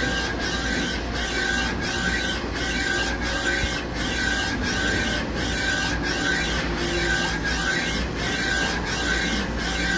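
Star SR-32J Swiss lathe's Z2-axis ball screw drive running the axis forward and backward, a mechanical whir with a high whine that pulses on and off in a steady rhythm, about three strokes every two seconds.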